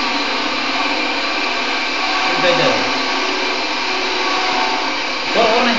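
A loud, steady whirring noise like a small motor running, with a voice heard briefly twice.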